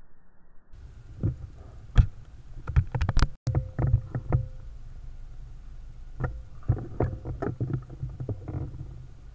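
Irregular knocks and clicks in two clusters, the loudest about two seconds in: handling noise of an air rifle and its scope-mounted camera being shifted while aiming.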